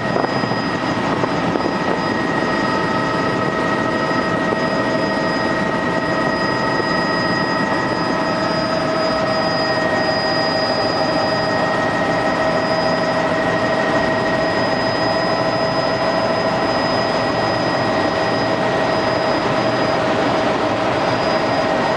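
Helicopter in flight, heard from aboard: a steady, unbroken rotor and engine noise with a high, even whine on top.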